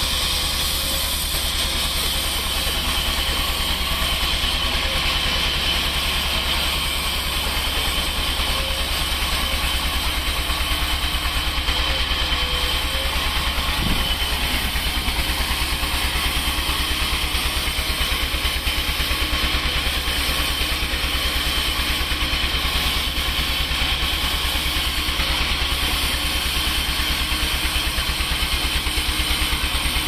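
Horizontal band sawmill running steadily: an unbroken low drone with a steady high tone above it.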